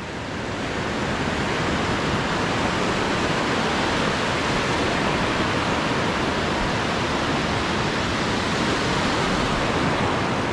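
Ocean surf breaking and washing in shallow water, a steady rushing noise that swells over the first second and then holds.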